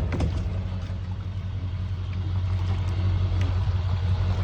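A motor vehicle or machine engine running steadily, a low, even hum with no change in speed.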